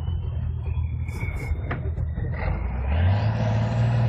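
Off-road trial truck's diesel engine pulling hard, getting louder and revving up about three seconds in as the truck noses down into a dirt obstacle.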